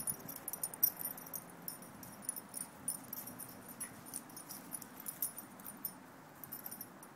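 Light metallic jingling and clicking in quick, irregular flurries over a faint low background hum.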